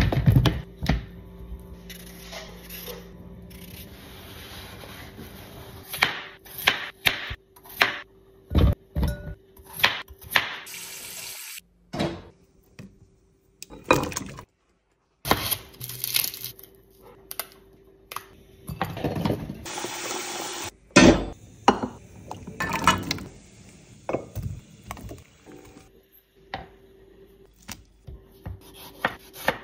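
A string of kitchen prep sounds cut together: raw potatoes tumbling out of a plastic colander onto a countertop at the start, knocks and clatter, peeled potatoes sliding from a bowl into a steel pot of water about halfway through, and water boiling with jalapeños and onion near the end.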